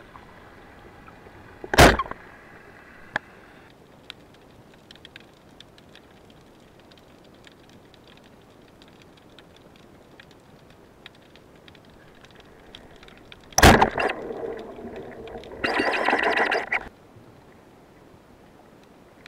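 Underwater sound on a spearfishing dive: faint crackling clicks throughout, two sharp knocks, and a harsh buzzing call lasting about a second near the end.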